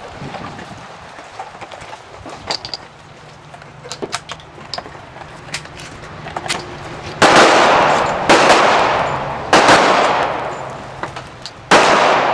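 Small clicks and handling noises of a shotgun being worked, then four loud gunshots: three about a second apart, the fourth after a two-second gap, each trailing off in a ringing echo.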